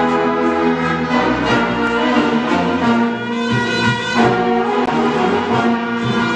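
A symphonic wind band of woodwinds, brass and percussion playing a mambo at full, steady volume.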